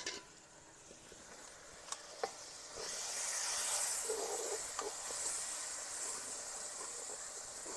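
Spicy tomato masala sizzling and hissing in a wok of hot oil, the hiss starting about three seconds in as a little water meets the hot pan and then slowly easing. A couple of light clicks come just before it.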